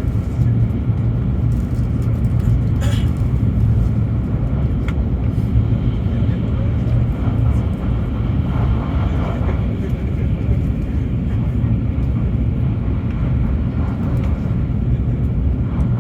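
Shinkansen high-speed train running, a steady low rumble with no rise or fall in level.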